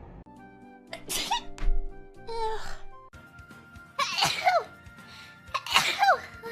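Young women sneezing: several sharp sneezes in quick succession from spliced clips, each a burst of breath ending in a short squeaky vocal tail that falls in pitch, over quiet background music.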